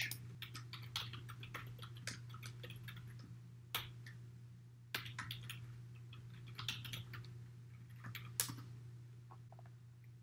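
Typing on a computer keyboard: a run of quick, quiet keystrokes with a few louder strokes among them, over a faint low hum.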